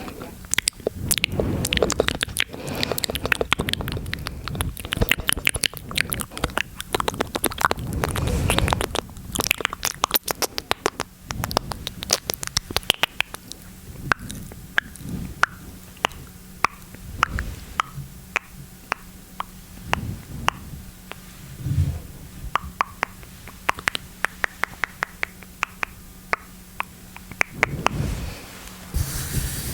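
Close-miked ASMR mouth sounds: a long run of wet mouth clicks and smacks, quick and dense at first and more spaced out in the second half.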